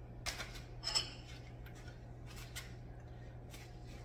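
Light clinks and knocks of a dish and cutlery being handled on a kitchen counter, a few separate strokes with the clearest about a second in, over a steady low hum.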